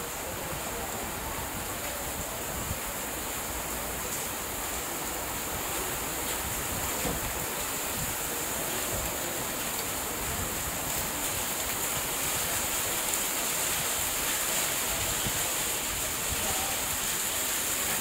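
Heavy downpour: steady hiss of rain on flooded ground, with water pouring off the edge of the roof overhead, growing a little louder toward the end.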